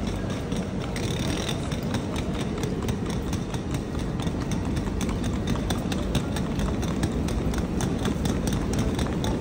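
Train station platform ambience under a large roofed shed: a steady low rumble with a constant run of footsteps and small clicks.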